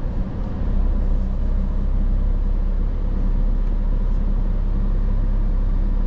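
Car driving along a gravel road, heard from inside the cabin: a steady low rumble of engine and tyres.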